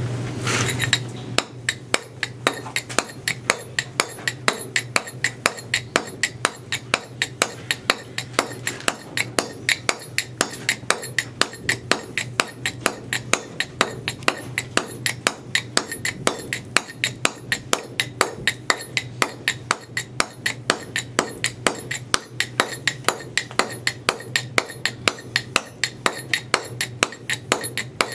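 A mason's mallet striking a boaster (broad stone chisel) held against a block of stone, in a steady run of sharp taps about two to three a second. The boaster is being driven straight across the chamfer between drafted lines, dressing its face flat.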